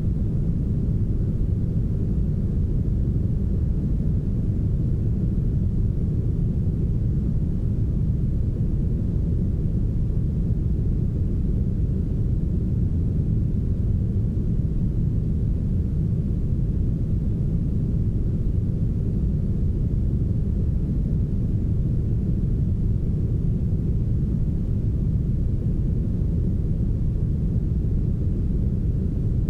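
Soft, smoothed brown noise: a steady, deep, even hiss with almost all its weight low down and very little treble.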